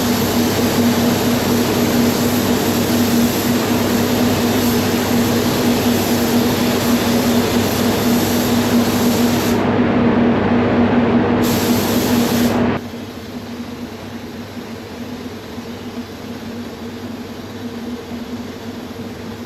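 Steady rushing hiss of compressed air over the constant hum of spray-booth fans. About 13 seconds in, the hiss cuts off and the sound drops to a quieter, duller hum.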